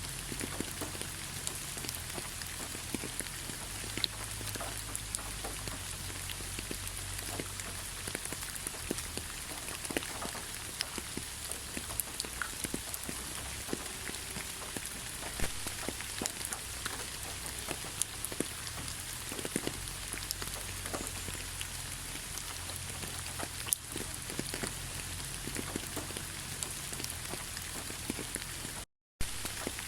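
Steady rain falling, with many individual drops ticking against the steady hiss and a low rumble underneath. The sound cuts out completely for a split second near the end.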